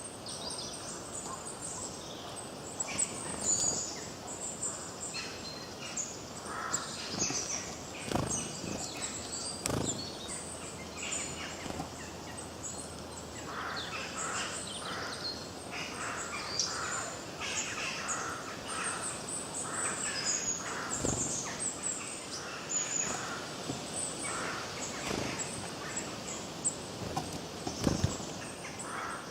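A chorus of forest birds singing and chirping, many short calls overlapping throughout. A few short knocks stand out now and then.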